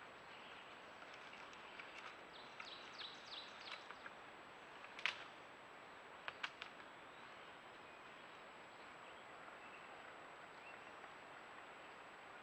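Faint outdoor ambience picked up by a trail camera: a steady hiss, with a quick run of short descending bird chirps a few seconds in and several sharp clicks. The loudest click comes about halfway through.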